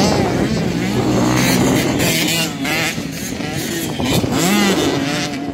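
Motocross bikes racing on a dirt track, their engines revving up and down as they ride through the gears.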